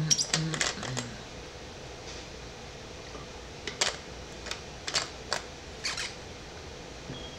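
Scattered sharp clicks and taps: a quick cluster in the first second, then single clicks and pairs every half second or so a few seconds later. A brief low vocal hum comes about a second in, over a steady room hum.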